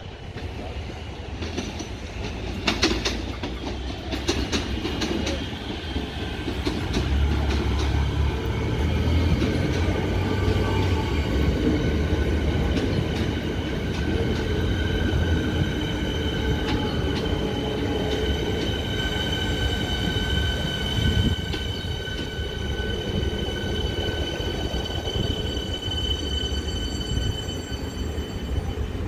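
Siemens Nexas electric suburban train running into the platform. Sharp wheel clicks over rail joints come in the first few seconds, then a heavy low rumble, and later a steady high-pitched whine with several tones.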